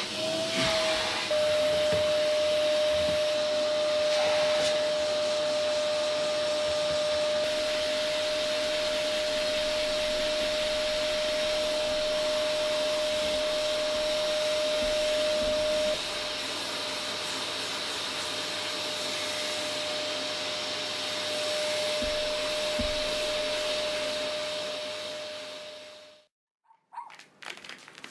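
Vacuum cleaner being run over a cat, its motor running steadily with a high whine. It switches off about 26 seconds in and winds down over about a second.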